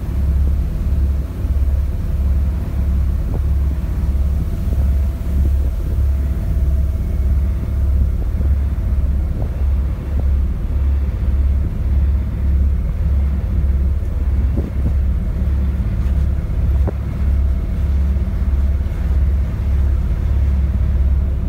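Small passenger ferry's engine running under way: a steady low rumble that pulses about twice a second.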